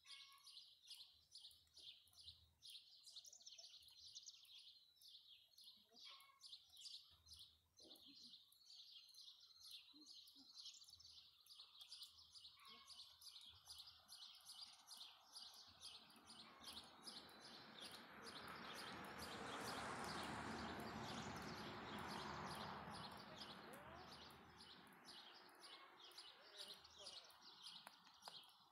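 Faint outdoor ambience: a continuous run of short, high-pitched chirps repeating several times a second. About halfway through, a broad rushing noise swells up, peaks and fades away again before the end.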